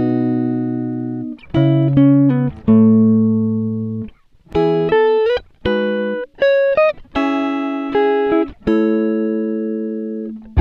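Background music of plucked, guitar-like notes and chords, each ringing out and fading, with short breaks between phrases.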